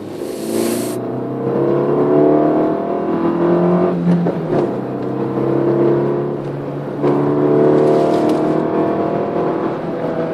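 Citroën Saxo VTR engine accelerating hard through the gears, revs climbing steadily and dropping at gear changes about four and seven seconds in. A short hiss at the very start.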